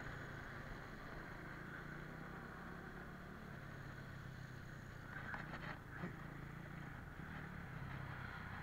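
A motorcycle engine running steadily, with road and tyre noise and a short clatter about five to six seconds in.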